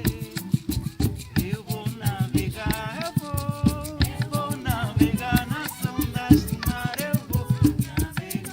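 Music: a voice singing a melody over steady, rhythmic percussion.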